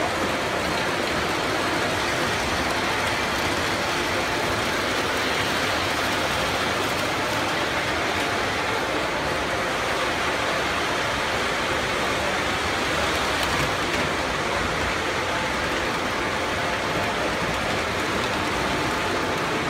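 Electric model trains running on a layout's metal track, a steady rumble and whir of wheels and motors that holds at one level throughout.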